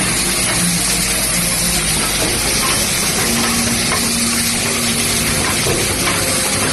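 Automatic plastic cap assembly machine running: a steady, dense hiss and rattle of small plastic caps in vibratory bowl feeders and feed tracks, over a low machine hum.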